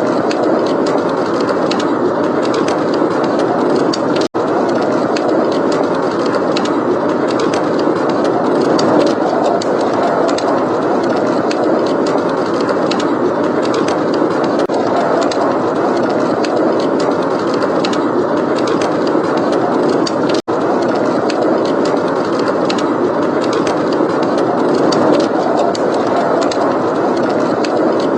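Blizzard wind blowing without a break, with a wood fire's frequent small crackles and pops over it. The sound drops out for a split second twice.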